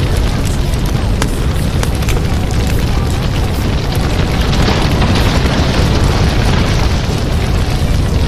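Loud, steady rushing noise with a heavy low rumble, swelling for a couple of seconds midway: the masking sound of a subliminal track.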